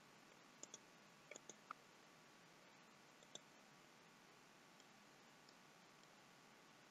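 Faint computer mouse clicks over near silence: a few quick clicks in the first two seconds and one more about three and a half seconds in.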